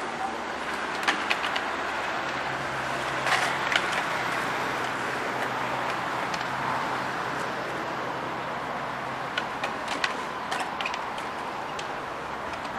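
Skateboards at a concrete skatepark: sharp clacks of boards popping and landing, in small clusters about a second in, around three and a half seconds, and again near the end, over a steady hum of street traffic.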